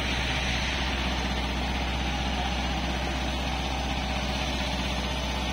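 Kawasaki Versys-X 250's parallel-twin engine idling steadily.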